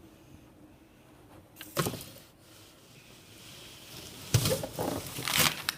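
Rustling and handling noises: a brief scuff about two seconds in, then a louder cluster of scuffs with a thump near the end.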